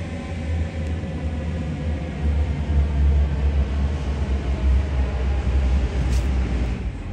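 A low, steady engine rumble that grows louder about two seconds in and eases off near the end.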